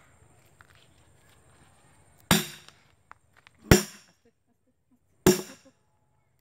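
Three hammer blows, about a second and a half apart, on the back of an axe head sunk into a felled log: metal-on-metal clanks, each with a short ring.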